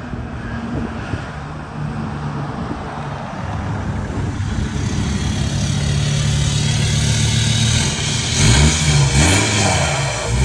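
Ford Ranger 3.2 five-cylinder turbodiesel running through a straight-through exhaust. It drones steadily and grows louder as the pickup pulls up, then is revved in several quick blips near the end, the pitch rising and falling.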